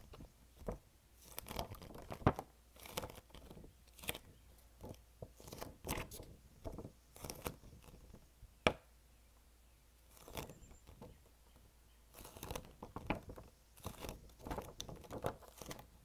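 Folded paper poster rustling and crinkling as it is handled and unfolded, with acrylic fingernails tapping and scratching on the paper in scattered sharp clicks. There is a lull in the middle, then busier crinkling near the end as the poster is folded and moved.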